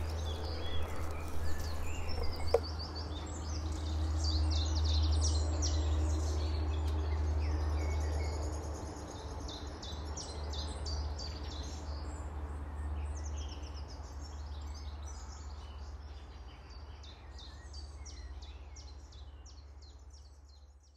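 Small birds chirping and calling over a steady low rumble, the whole slowly fading out towards the end.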